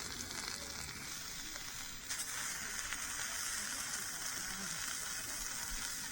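Steady sizzling hiss, as of food frying on a hot pan or grill, getting louder about two seconds in and then holding steady.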